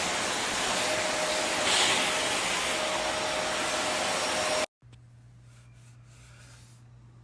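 Small handheld vacuum cleaner running steadily as it sucks dust from a TV's cooling-fan area, then switched off, cutting out suddenly about four and a half seconds in. A quiet low hum is left behind.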